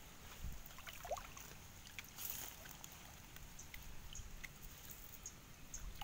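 Soft splashing and dripping of water as a gill net and its float line are fed by hand into shallow water, with a slightly louder splash about two seconds in and a few small ticks.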